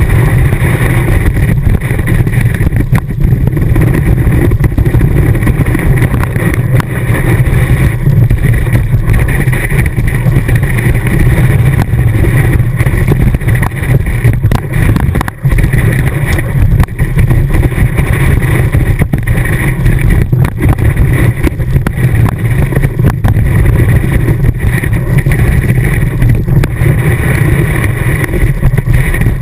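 Loud, steady rumble of rushing wind and ski-on-snow vibration picked up by a GoPro fixed to the tip of a ski on a fast downhill run, with a short break about halfway through.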